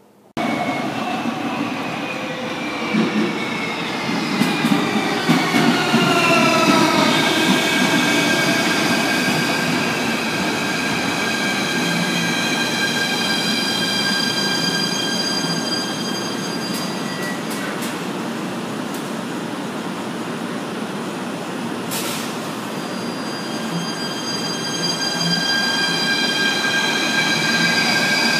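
Hyundai Rotem electric multiple unit of the Athens Metro moving along the platform. A high electric whine of several tones falls in pitch over the first several seconds, then holds steady, with the running noise of the train beneath it. There is one sharp click a little over 20 seconds in, and the whine starts to rise again near the end.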